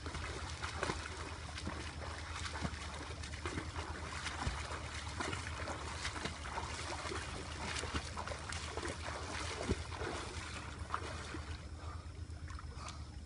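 A swimmer's arm strokes and kicks splashing in a pool, a steady run of splashes that eases off near the end as he reaches the edge.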